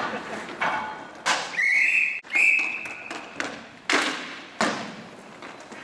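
Referee's whistle blown in two quick blasts, one straight after the other, with sharp knocks of hockey sticks and puck on the floor and boards before and after.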